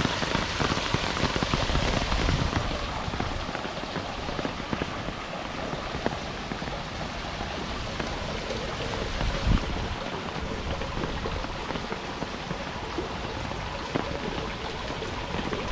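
Heavy rain falling: an even hiss filled with a dense patter of individual drops, heaviest in the first couple of seconds, with one sharper drop hit about nine and a half seconds in.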